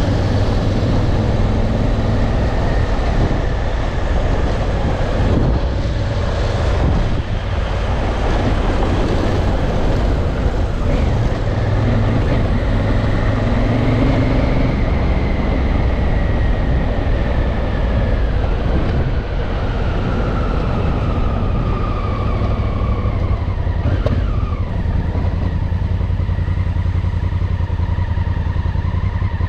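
Honda Africa Twin's parallel-twin engine running under way on a dirt road. Its pitch rises around the middle and then slides back down as the bike slows.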